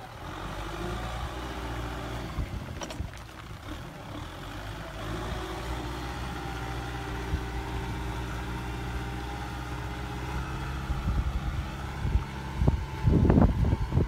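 Kubota M6040SU tractor's four-cylinder diesel engine running steadily as the tractor crawls along a soft earth bank. Near the end, loud gusts of wind buffet the microphone over the engine.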